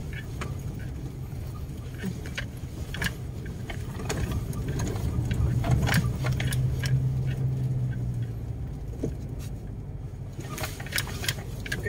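Car running slowly along a rough dirt road, heard from inside the cabin: a low engine and road hum that grows louder for a few seconds midway, with frequent short rattles and knocks as the car jolts over the ruts.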